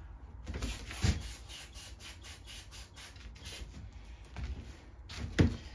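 Quick rubbing strokes, several a second, as a small carburetor part of a Tecumseh mower engine is scrubbed clean by hand, with a sharp knock about a second in and a louder one near the end as parts are handled.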